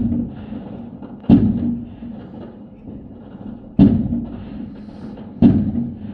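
New Year's fireworks going off: loud single booms at uneven intervals, one right at the start and others about a second and a half, four and five and a half seconds in, each dying away quickly.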